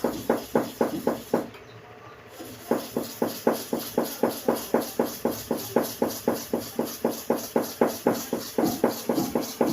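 Hair-clipper blade rubbed back and forth on a hard sharpening stone: quick, even scraping strokes, about five a second, with a pause of about a second and a half near the start.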